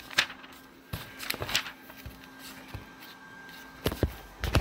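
Pages of a paper notebook being turned by hand: several short paper rustles and flicks.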